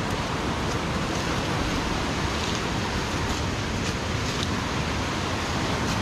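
Steady rushing roar of a large waterfall, a constant even wash of falling water with a few faint ticks over it.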